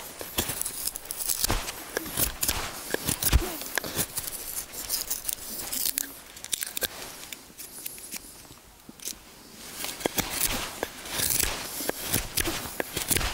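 Malanika puukko knife carving dry spruce: a run of irregular shaving cuts, each a short scraping rasp of blade through wood, easing off for a moment about eight seconds in before the cuts resume.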